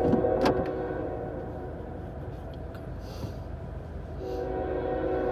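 Norfolk Southern locomotive air horn sounding its chord for the grade crossing. The first blast fades about a second and a half in, and the horn sounds again about four seconds in.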